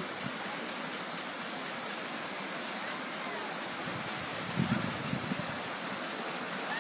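Steady rushing of a fast, flooded river. A short cluster of low muffled bumps comes a little after halfway through.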